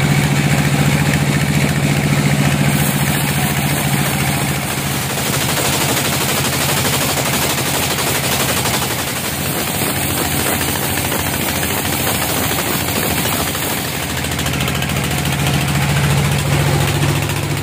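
Band sawmill running, a steady low mechanical drone under a harsh rasping noise as the band blade saws teak. The drone eases through the middle and swells again near the end.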